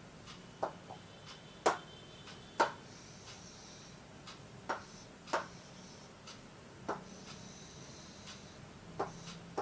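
Scattered sharp taps and clicks on the glass of an interactive display board as lines are drawn on it, about eight in all, over faint steady room hum.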